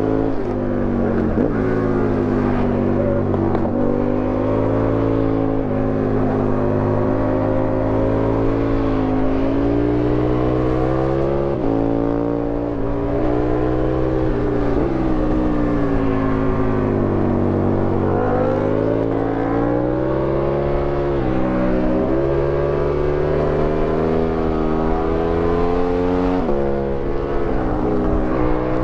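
Aprilia Tuono 1000R's V-twin engine under hard riding. Its pitch rises and falls continuously through the bends, with several abrupt drops as the rider shifts or rolls off. Wind rush sits under it.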